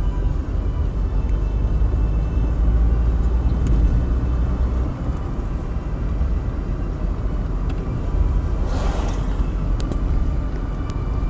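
A car driving slowly on a rough, potholed road: a steady low rumble of engine and tyres, with a brief rushing hiss about nine seconds in.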